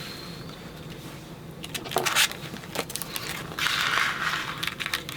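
Paper cut-outs being handled and slid on a craft table: a few light taps about two seconds in, then a short rustle of paper shortly before the end.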